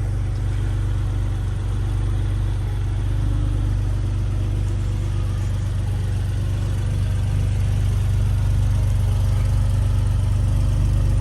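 Infiniti G37's 3.7-litre V6, fitted with aftermarket headers and exhaust, idling with a steady deep drone that holds an even pitch and level throughout.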